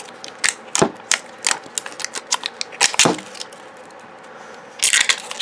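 LOL Surprise ball's wrapper being peeled off: a run of sharp crackles and clicks, a quieter pause of about a second and a half, then a dense burst of crinkling near the end.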